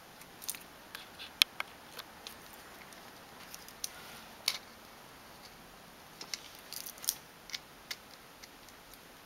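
Scattered small plastic clicks and taps from handling the parts of a Sindoh 3DWOX DP200 printhead as wire connectors are pressed into its plastic case. The two sharpest come about one and a half and four and a half seconds in, with a quick run of clicks near the end.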